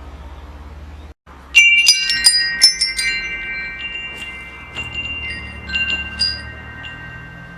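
Metal wind chimes jangling: a quick cluster of strikes about a second and a half in, their tones ringing on and slowly fading, with a few lighter strikes later. Before them, a low steady hum cuts off briefly.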